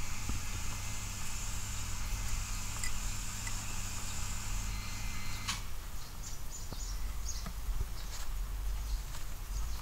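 A steady low hum with a high hiss that cuts off suddenly a little over halfway through, leaving faint scratches and clicks of rats shifting in wood-shaving bedding.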